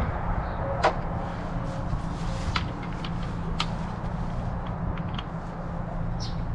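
A few sharp metallic clicks and taps of sockets and tools being handled, over a steady low hum.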